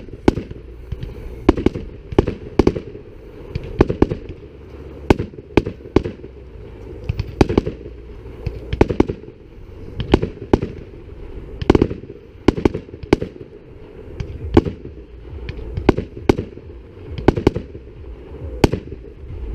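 Aerial firework shells bursting: a steady series of sharp bangs, often in close pairs, every second or so, with a steady low rumble between them.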